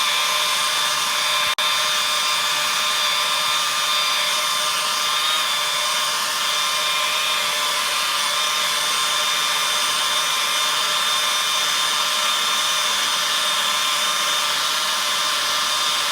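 Electric chainsaw running steadily with a high-pitched whine, cutting out for an instant about a second and a half in.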